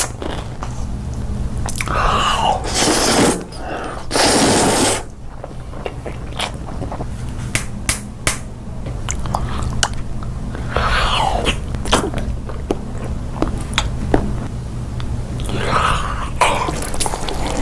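Close-miked ASMR eating sounds: biting and chewing, with many sharp crunchy clicks and a few longer wet, crackly bursts.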